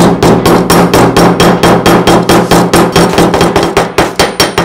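Rapid hammering: a steel hammer strikes the end of a small brass tube laid on another hammer's steel head, about six quick blows a second, each with a metallic ring.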